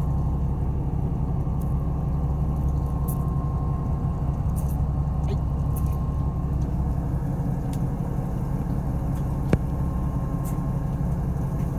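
Fishing boat's engine running with a steady low hum. A sharp click about nine and a half seconds in, with a few faint ticks around it.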